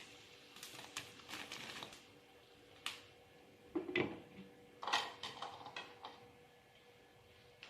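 Kitchen utensils knocking and clinking: a run of light taps about a second in, a sharp knock near three seconds, then louder clattering twice around four and five seconds.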